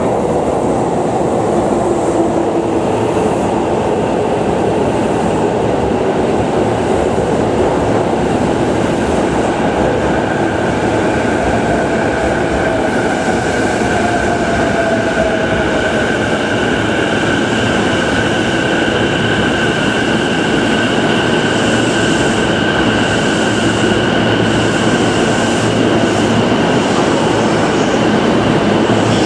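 JR East E233-7000 series electric commuter train arriving at an enclosed station platform and slowing, its wheels and running gear echoing off the platform structure. A whine falls in pitch about halfway through as it slows, and two steady high tones hold through the second half.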